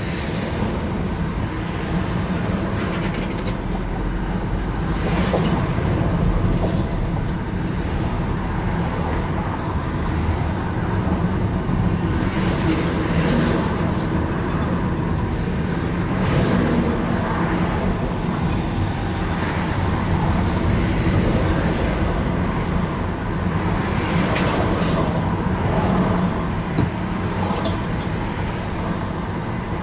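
Road noise from a car driving in traffic: a steady rumble of engine and tyres on the road surface, with several louder whooshes as other vehicles go by.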